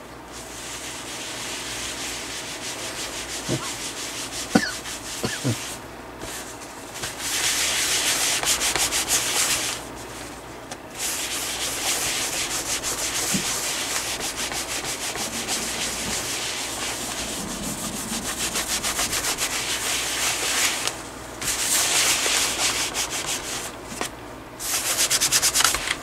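A paper towel scrubbed hard back and forth across the plastic underside of a ThinkPad T61 laptop, rubbing off sticky label-adhesive residue. It comes in runs of rapid strokes broken by a few short pauses.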